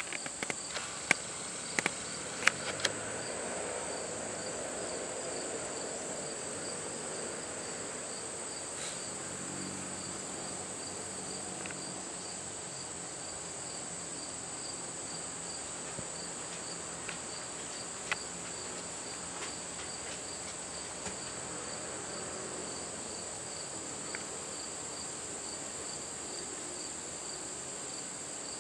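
Insect chorus: a steady high trill with a lower, pulsing chirp repeating under it. A few sharp clicks sound in the first few seconds.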